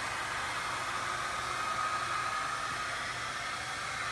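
Handheld hair dryer running steadily, an even rush of blowing air with a faint whine from its fan motor.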